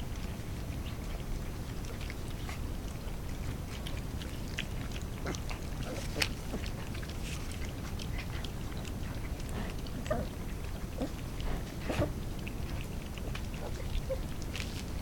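Several young puppies lapping and slurping soft gruel from a shared bowl: a run of small wet clicks and smacks, with a few brief squeaks in the second half.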